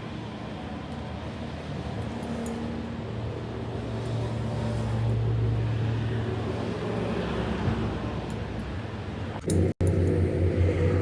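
Engine running with a steady low drone. After a brief cut near the end it comes back louder, with a pulsing beat.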